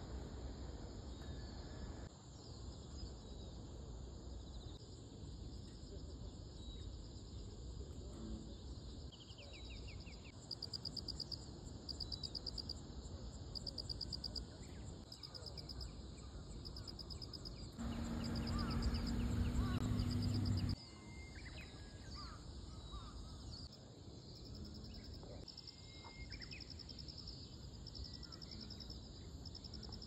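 Insect chorus: a steady high-pitched drone with rhythmic pulsed chirping trills, and a few short bird calls. For about three seconds past the middle a louder low hum joins in, then cuts off abruptly.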